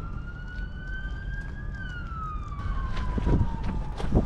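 Emergency vehicle siren wailing: one slow rise in pitch, then a longer fall, over a low rumble. A couple of short knocks near the end.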